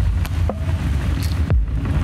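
Intro music: a low rumbling drone with a deep booming beat about once a second, each hit dropping in pitch, and a few light high ticks between the hits.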